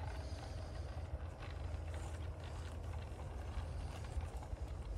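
Model diesel locomotive, a modified Roundhouse 'Hercules', and four wagons trundling slowly along garden-railway track: irregular light clicks of small wheels running over the rails, over a steady low rumble.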